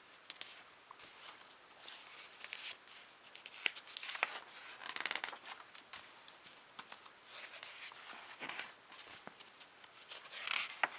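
Faint paper rustling and soft clicks as magazine pages are handled and turned, a few louder swishes about four, five and ten seconds in.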